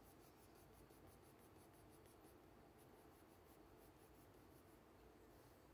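Faint scratching of a colored pencil shading on paper, in quick, regular strokes for about two seconds, then fewer and further apart.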